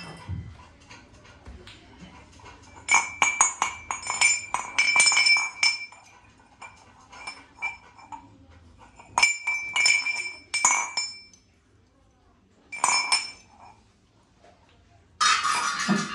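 Brass utensils clinking and ringing as they are handled and knocked together, in several short flurries. Near the end one is struck harder and keeps ringing.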